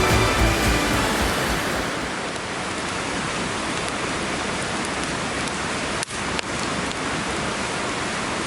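A fire burning with a steady hiss and a couple of sharp crackles about six seconds in. Background music fades out during the first two seconds.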